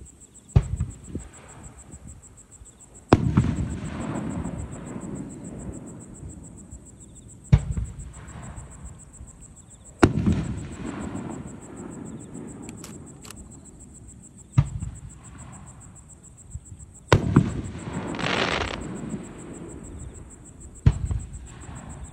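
Aerial firework shells bursting at a distance: seven sharp booms a few seconds apart, each followed by a long rolling echo. About two-thirds of the way through, one burst is followed by a second or so of crackling.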